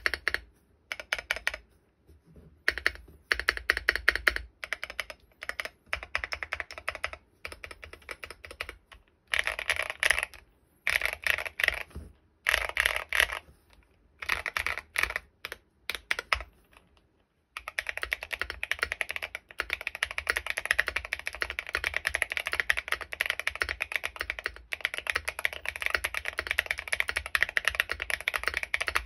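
Typing on a Bakeneko65 mechanical keyboard with lubed Gateron Azure Dragon tactile switches and SA-profile keycaps. Short bursts of keystrokes with brief pauses give way, a little past halfway, to steady fast typing.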